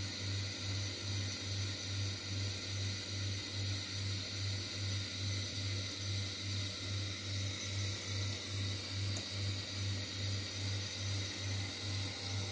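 Tap water running in a thin stream into a kitchen sink, a steady hiss, under a louder low hum that pulses evenly about three times a second.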